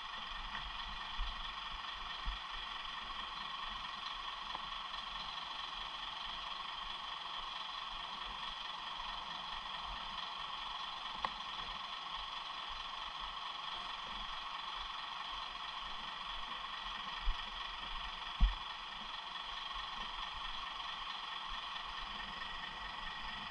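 Pushbike rolling along with a steady mechanical whirr and a few low knocks and rattles, louder ones near the end, as it goes over bumps.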